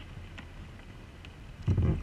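Kayak being paddled: low wind noise on the bow-mounted microphone, then a paddle stroke near the end gives a short, loud, low whoosh of water.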